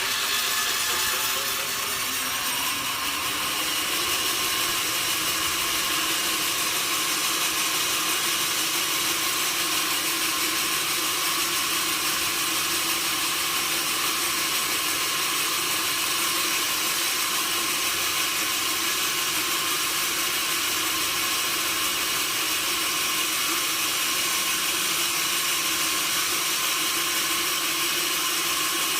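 A sawmill saw cutting through wood: a loud, steady hiss and whine that holds evenly, with a wavering tone in the first few seconds.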